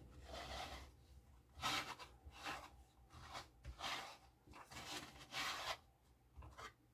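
A figure's plastic base being turned by hand on a tabletop: a series of short rubbing scrapes as it slides round.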